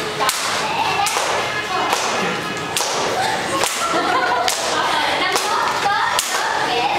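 A long stick swung and struck in sharp, whip-like cracks, roughly one a second, over the voices of a room full of people.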